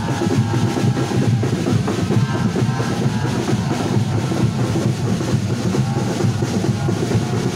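Football supporters' drums beating steadily while a marching crowd sings a chant together.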